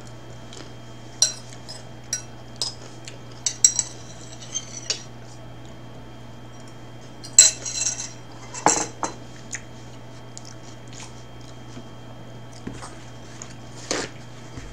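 A spoon clinking and scraping against a ceramic bowl while ice cream is eaten: short scattered clinks through the first few seconds, a louder cluster about seven to nine seconds in, then a quieter stretch. Near the end, a brief sound of a paper towel being torn off the roll.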